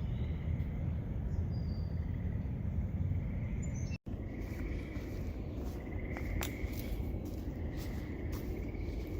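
Outdoor wetland ambience: a steady low rumble of wind on the microphone, with faint high calls from insects and birds and a few light clicks. The sound drops out for an instant about four seconds in.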